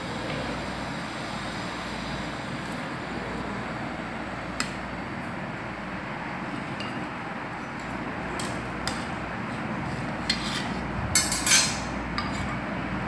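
Light metallic clicks and clinks of a metal watermelon cutter against a steel plate and cutting board over a steady background hiss. The clicks are scattered, with a quick cluster of louder clinks about eleven seconds in.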